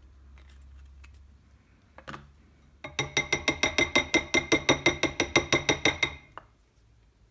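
A utensil whisking or beating a dressing in a bowl: rapid, regular ringing clinks, about six strokes a second for roughly three seconds. A single knock comes shortly before the clinks begin.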